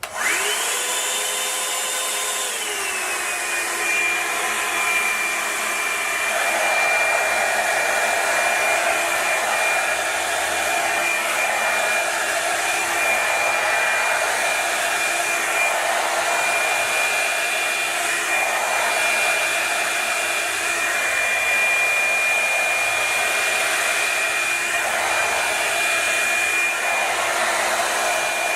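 Revlon One-Step hot-air dryer brush switched on and running: a steady motor whine with rushing air. The whine drops to a lower pitch about three seconds in and then holds, while the rush of air swells every few seconds.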